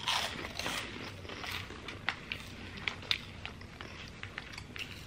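Crunchy red chili snack wheels being bitten and chewed by two people, a run of irregular sharp crunches and crackles.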